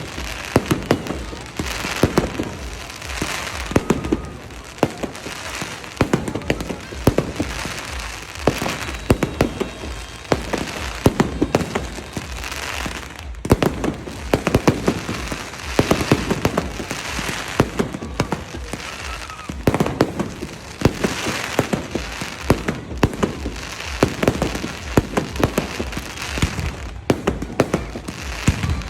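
Fireworks display going off without a break: clusters of sharp bangs and crackling every second or two.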